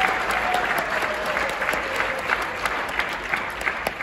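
Congregation applauding, the clapping slowly tapering off. One long held cheer, sinking slowly in pitch, rises above the clapping for the first couple of seconds.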